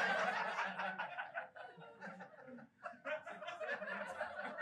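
Small comedy-club audience laughing, loudest at first and fading over the first couple of seconds, then swelling again about three seconds in.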